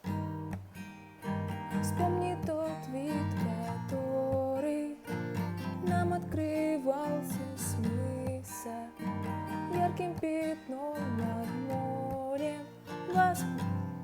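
Acoustic guitar playing an instrumental intro: chords ringing under a melody line. It starts suddenly.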